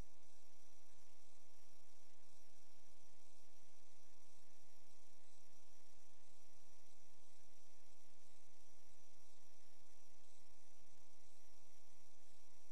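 Steady electrical mains hum, buzzy with many stacked overtones, picked up in the audio of a sewer inspection camera's recorder. The camera head is stationary in the drain.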